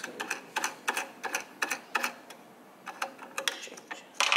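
Irregular small clicks and taps from hands working the blade holder on a USCutter SC2 vinyl cutter's carriage, adjusting a knife that is cutting too deep. A louder knock comes just before the end.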